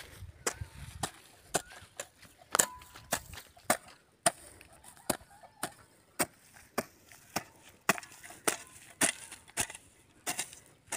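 A digging hoe's metal blade chopping into dry, grassy soil again and again, sharp strikes at about two a second.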